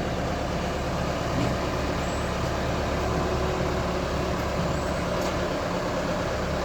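Engine of a Crown CCH-2000 Star 90 combine harvester running at a steady speed.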